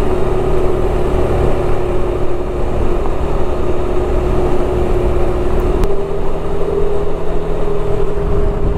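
Suzuki Burgman 400 scooter's single-cylinder engine running at a steady riding speed, with wind and road rumble on the microphone. Its drone steps up slightly in pitch about six seconds in as the scooter speeds up.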